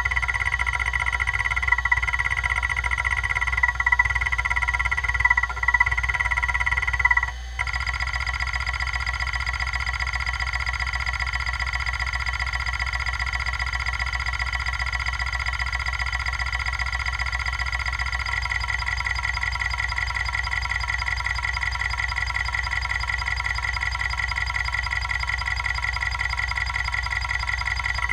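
Kalok KL-320 MFM hard drive running: a steady high-pitched whine with the head actuator seeking in a fast, even buzz of ticks. For the first seven seconds the seeking swells in louder bursts every second or two. After a brief dip it settles into a steady rapid rhythm. The drive is badly damaged, running on three heads after a broken head and its top arm were removed.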